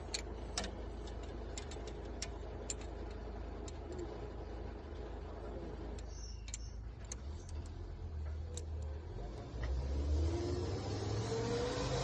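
Diesel generator set engine running with a steady low hum and scattered sharp clicks. It gets louder from about ten seconds in, with a rising tone near the end, while air is being bled from the set.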